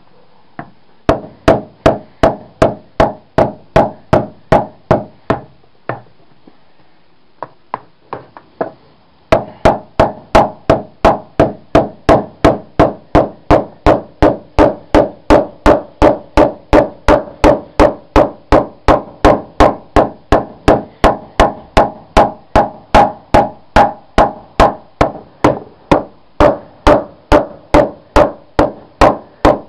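Heavy hammer pounding a lead-sheathed pipe flat against paving stones, in steady blows of about two to three a second with a short ring after each. After a few seconds of blows comes a brief pause with only a few scattered strikes, then the pounding resumes and keeps an even rhythm.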